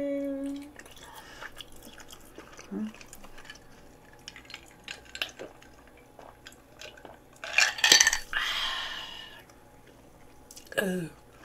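A person drinks from a glass, with small quiet gulps and clicks. Then comes a sharp click and a loud breathy exhale about eight seconds in, and a short falling hum near the end.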